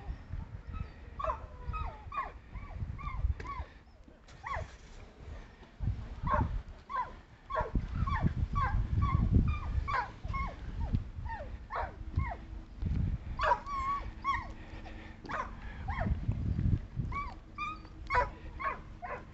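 A noisy dog yipping and whining over and over in short, high calls that fall in pitch, with a low rumble underneath.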